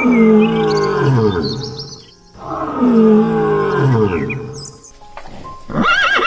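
A big cat roaring twice, two long calls of about two seconds each that slide down in pitch. Near the end a horse's whinny starts.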